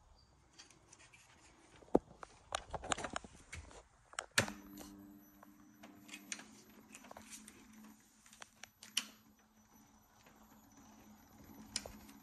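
Sharp clicks and knocks, then from about four seconds in a steady low hum with a faint high whine above it.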